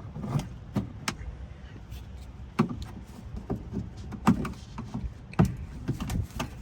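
Plastic retaining clips being popped off the rear AC evaporator box cover of a 2005 Chevy Tahoe: a string of irregular sharp clicks and knocks.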